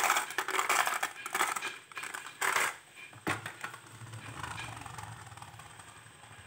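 Marbles rattling and clacking against each other in the plastic bed of a toy dump truck as it is moved by hand. The clattering is dense for the first couple of seconds and ends with a last burst about two and a half seconds in. After that the sound drops to a faint low hum.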